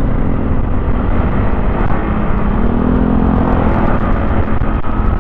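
Steady rush of wind on the microphone of a moving motorcycle, with the motorcycle's engine hum underneath, its pitch rising and falling once in the middle.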